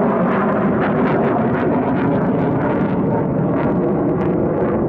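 Jet aircraft engine running steadily on the ground: a loud, even rushing noise with no rise or fall in pitch.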